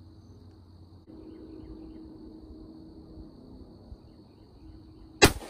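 A bow shot at a deer: after a quiet stretch, a single sharp, loud snap of the bowstring releasing the arrow about five seconds in, followed by a brief ringing.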